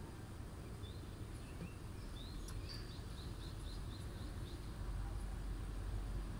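A small bird calling: a couple of single high chirps, then a quick run of about eight short chirps at four or five a second. Under it is a low, steady outdoor rumble.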